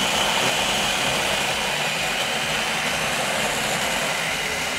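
Electric blender running steadily at full speed, puréeing chunks of onion, habanero pepper and garlic into a paste.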